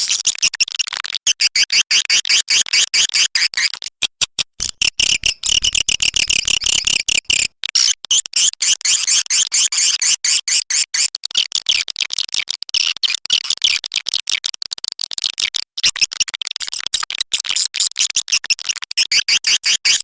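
Swiftlet call recording: a dense, rapid high twittering of chirps, broken by a few short gaps about four and seven seconds in. This is the kind of swiftlet sound track played in swiftlet houses to lure the birds to nest.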